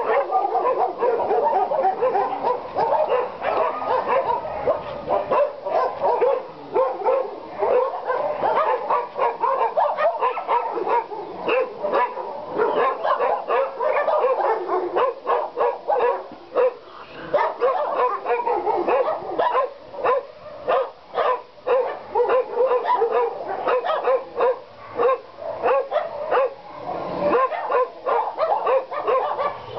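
Many dogs barking and yipping at once, a continuous din of overlapping barks with no pause.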